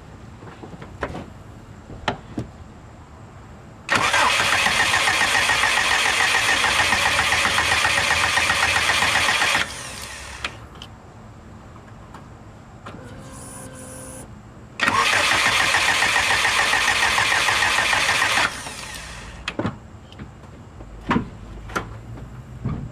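Subaru Impreza flat-four engine cranking on the starter twice, about six seconds and then about four seconds, with an even pulsing beat, and not catching either time. It is a no-start, which the owner puts down to bad spark plugs.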